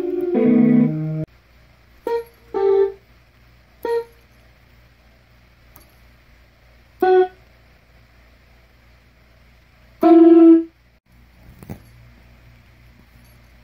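Casio light-up electronic keyboard sounding notes as a kitten's paws press the keys at random: a quick run of falling notes at the start, then five single notes scattered over the next ten seconds, the last held a little longer. A soft click comes near the end.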